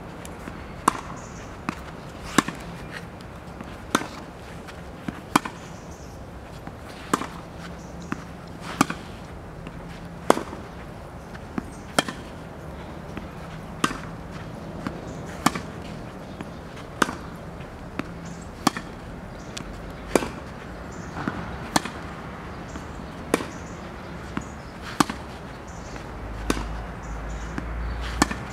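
Tennis ball being struck by rackets in a steady rally, a sharp pop about every one and a half seconds as the ball goes back and forth.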